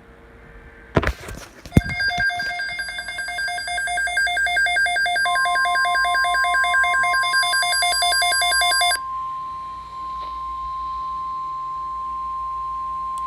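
Emergency alert radio alarm: a short crackle about a second in, then a rapidly pulsing electronic beeping that stops about nine seconds in. From about five seconds in, a steady single-pitched alert tone joins it and holds on, the NOAA Weather Radio warning alarm tone that comes before a severe weather bulletin.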